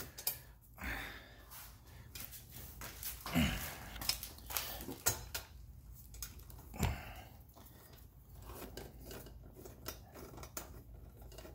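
Scattered light metal clicks and clinks of a socket and small ratchet turning the bolts of an aluminium radiator guard, with a few louder knocks.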